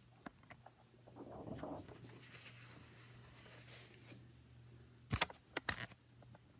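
A large sheet of paper handled on a vinyl ottoman: a soft rustle about a second in, then a few sharp crackles or taps a little after five seconds as the sheet is pressed flat by hand.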